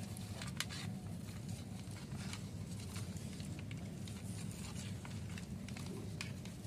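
A spoon stirring a pot of simmering duck curry: scattered faint clicks and scrapes over a steady low rumble.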